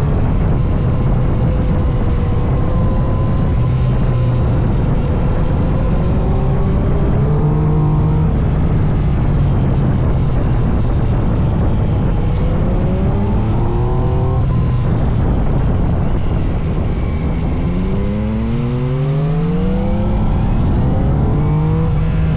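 Yamaha MT-09 SP's inline-three engine running under way, its revs climbing several times as it accelerates, most strongly in a run of rising sweeps about three-quarters of the way through. A constant low rush sits under it.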